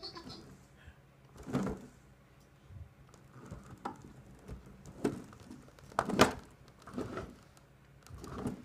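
Homemade BB-8 robot, a radio-controlled drive inside a ball with its head held on by magnets, moving in short spurts. There are several brief rumbles and knocks, the loudest about six seconds in.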